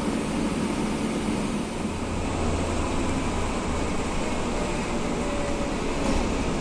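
Cabin noise inside a Mercedes-Benz O405GN2 articulated city bus: its diesel engine running with a steady low drone.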